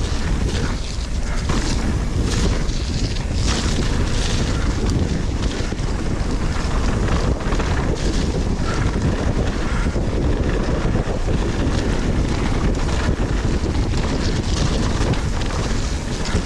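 Wind rushing over the camera microphone as a mountain bike is ridden fast downhill, with the bike clattering over bumps in the trail.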